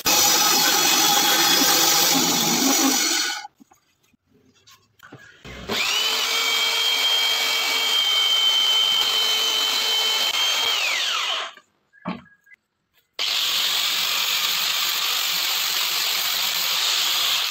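A bandsaw cutting a wooden circle, then stopping. Next an upturned belt sander spins up with a rising whine, runs steadily while the disc's edge is sanded, and winds down; after a short pause a handheld rotary sander runs steadily against the face of the disc.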